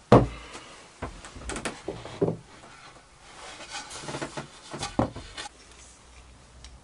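Plywood boards being handled on a cardboard-covered workbench. A sharp wooden knock as they are set down at the start, then scattered lighter taps and knocks with a faint rubbing between them.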